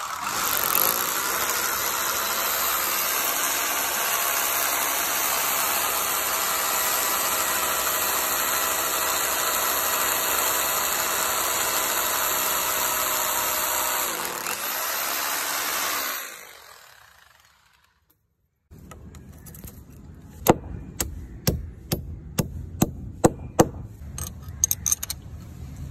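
Electric drill with a masonry bit boring steadily into a concrete wall, its motor running at a held pitch for about fourteen seconds before it winds down and stops. After a short silence comes a run of about a dozen sharp knocks as the anchor bolt is set in the hole.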